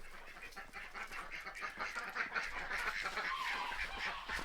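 A flock of domestic ducks and geese calling together, a dense chatter of quick honks and quacks that grows louder after the first second or so.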